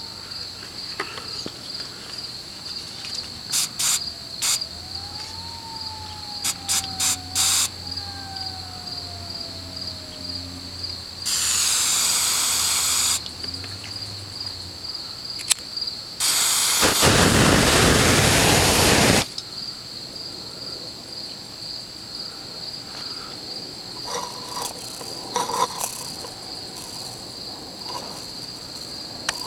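Insects chirping steadily in a fast pulsing high trill, with a few sharp clicks early on and two loud bursts of hissing, rushing noise near the middle, the second, about three seconds long, the loudest.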